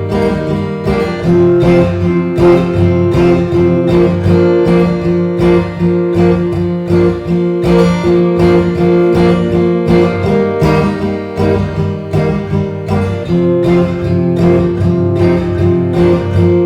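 Acoustic guitar strummed in a steady rhythm, playing the instrumental close of a folk song with no singing.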